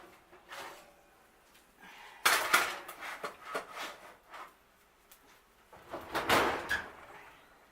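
Oven door opening and a metal baking pan being handled: a sudden clatter about two seconds in with a few knocks after it, then another noisy burst about six seconds in.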